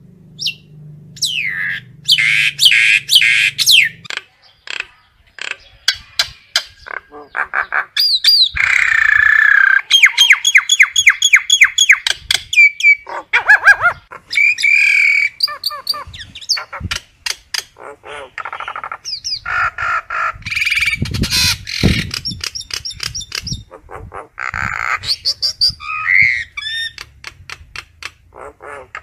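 Common myna calling: a varied, unbroken run of harsh squawks, fast clicking notes and sliding whistles, the kind of call it uses to gather the flock.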